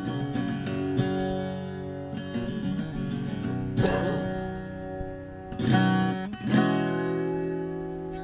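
Steel-string acoustic guitar played solo: chords strummed and left to ring, with sharper strums about four, five and a half and six and a half seconds in.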